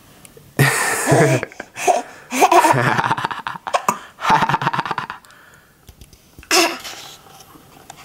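An eight-month-old baby laughing and giggling in several short bursts, some of them quick rapid-fire giggles.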